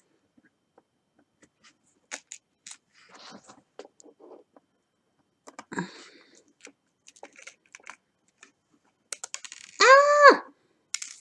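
Quiet, scattered little clicks and taps of tweezers picking up diamond-painting drills from a tray and pressing them into place. Near the end comes a short, loud squeak that rises and then falls in pitch.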